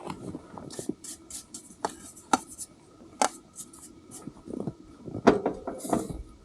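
Objects being handled up close: scattered sharp clicks and knocks, the loudest about five seconds in, with short bouts of scraping and rubbing between them.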